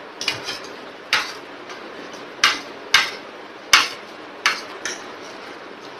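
Metal spoon and fork clinking and scraping against a plate while scooping up rice: about seven sharp, short clinks at uneven intervals.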